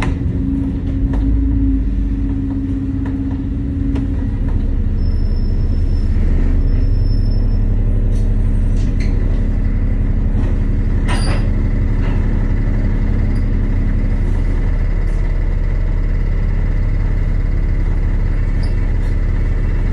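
Double-decker bus idling at a stop, its engine running with a steady low throb, heard from inside the top deck. A single sharp click about eleven seconds in.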